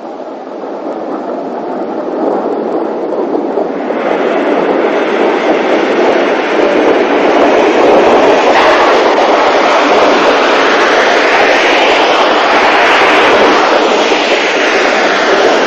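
Isle of Man Railway narrow-gauge steam train, hauled by locomotive number 12 Hutchinson, running into the station, its carriages rattling along the track. The noise grows louder over the first few seconds, then holds steady.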